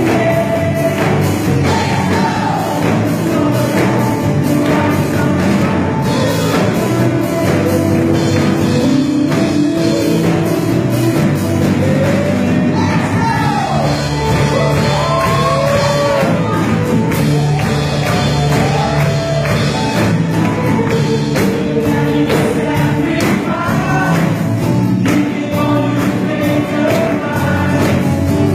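Live Christian worship band playing an upbeat praise song with a steady beat, several singers on microphones singing together over the band, heard from the audience seats in a hall.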